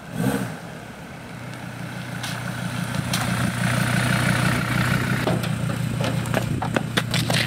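Dodge Sprinter van's engine running, growing louder as the van pulls up close and then idling steadily. From about five seconds in there are sharp knocks and thumps as someone jumps down out of the van's open back doors.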